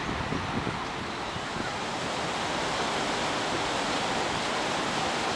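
Steady rushing noise of wind and river water at a stone quay, getting a little louder after about two seconds.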